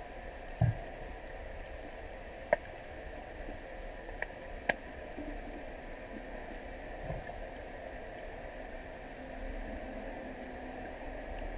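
Underwater ambience heard through an action camera's housing: a steady hiss and hum, broken by a few sharp clicks and two dull thumps. A low hum comes in during the last few seconds.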